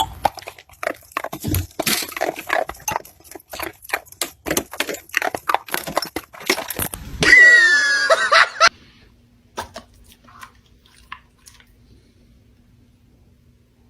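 An animal chewing, with irregular crunching for about seven seconds, then a loud wavering high-pitched call lasting about a second and a half. After that there is only a faint steady hum and a few soft ticks.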